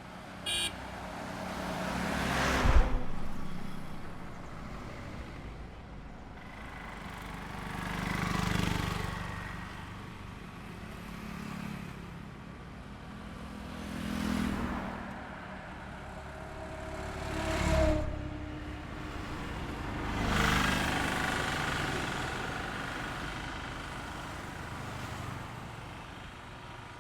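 Road traffic on a two-lane highway: about five vehicles pass one after another, each rising to a rushing peak of engine and tyre noise and fading away, the first one, about three seconds in, the loudest. Just after the start there is a brief high-pitched tone.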